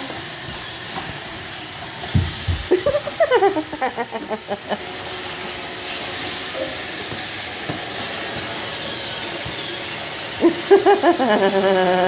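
Roomba robot vacuum running with a steady whirring hiss as it drives across wood and tile floors. Twice, around three seconds in and again near the end, a louder short pitched sound slides down in pitch over it.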